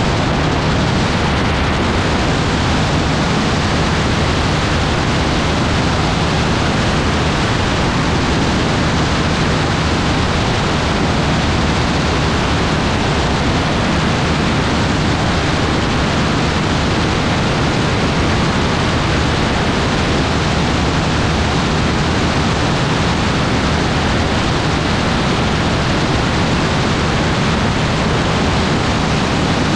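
Steady rush of wind over the microphone of an AutoGyro MTOfree open-cockpit gyroplane in flight, with a low, even engine drone underneath.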